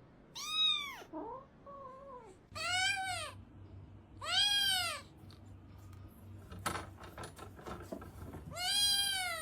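A cat meowing: four long meows, each rising then falling in pitch, with a quieter, lower two-note call after the first. A single sharp knock comes about two-thirds of the way through.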